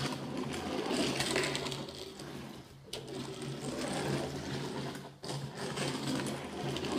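Die-cast toy cars' small wheels whirring and rattling as they are pushed by hand around a wooden track, swelling and fading twice as they go round.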